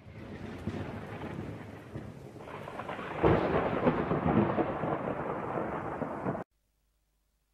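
Thunder sound effect: a rumble that grows louder with a sharp crack about three seconds in, then cuts off suddenly near the end.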